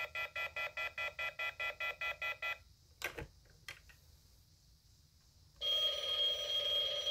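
The speaker of a Halloween prop telephone plays a rapid electronic ring, about five pulses a second, which stops about two and a half seconds in. About half a second later the handset clacks once onto its cradle. Near the end, as the dial is touched, the phone starts a steady electronic tone.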